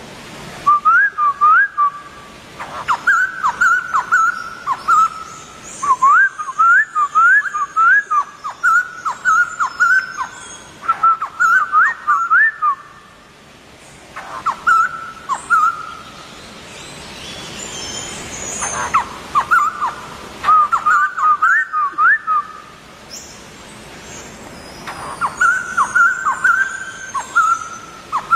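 White-crested laughingthrush singing: phrases of loud whistled notes, many starting with a quick upward slur and then held, repeated in bursts of a few seconds with short pauses between.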